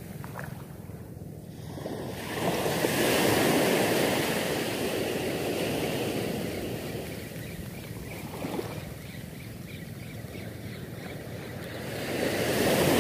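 Small waves breaking and washing up a sand beach. The surge swells about two seconds in and again near the end, where it is loudest.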